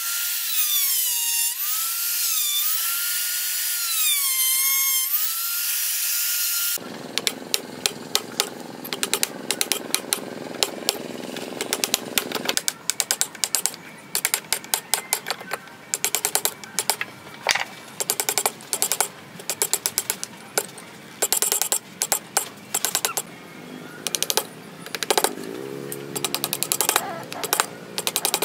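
A handheld rotary tool with a carving bit whines as it cuts into the wood, its pitch wavering up and down with the load. About seven seconds in it gives way to a hand chisel cutting and paring the wood: a long, uneven run of sharp clicks and cracks.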